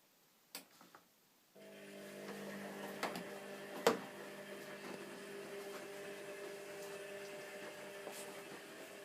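Zanussi washing machine starting up: a couple of soft clicks, then about a second and a half in a steady mechanical hum starts and keeps running, with a few sharp clicks over it.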